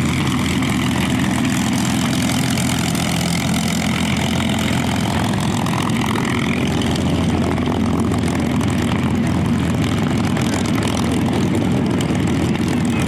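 North American P-51 Mustang's Packard Merlin V12 engine and propeller running with a steady, even drone as the aircraft comes in.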